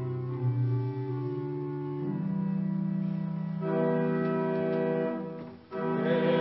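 Church organ playing the sustained chords of a hymn introduction, changing chord about two seconds in and again near four seconds. It breaks off briefly near the end and comes back in fuller as the hymn begins.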